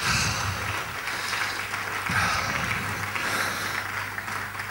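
Congregation clapping in praise, a steady spread of handclaps.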